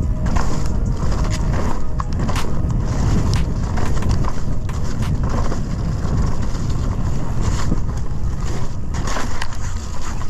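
Mountain-bike descent on a muddy trail: wind buffeting the bike-mounted camera microphone and knobby tyres rolling over mud and roots, with frequent sharp clacks and rattles from the Scott Ransom 920 full-suspension bike as it hits bumps.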